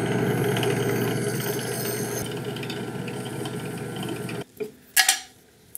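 A metal file and then abrasive paper rasping steadily against a copper tube plug spinning in a drill press chuck, reshaping the bevel on the plug's rim. The rasping stops suddenly after about four seconds, and a single sharp click follows.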